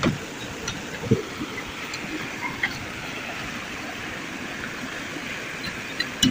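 A few light knocks and taps as a steel combination square and a marker are set against an aluminium square tube on a metal workbench, over a steady background hiss.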